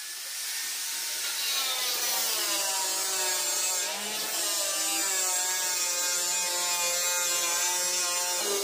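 Handheld electric angle grinder with a cutting disc slitting a 4-inch PVC pipe lengthwise. It gives a steady motor whine over the hiss of the disc cutting plastic, and the pitch sags slightly a couple of times as the disc bites under load.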